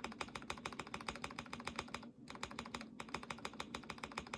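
Mechanical keyboard typed on rapidly, its stabilized keys fitted with Akko screw-in stabilizers lubed with Krytox 205g0 on the housings and silicone grease on the wires. A steady stream of quick keystrokes, about ten a second, with two brief breaks near the middle.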